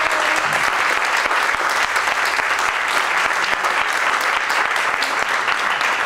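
Audience and people on stage applauding steadily, a dense patter of many hands clapping, greeting a prize winner.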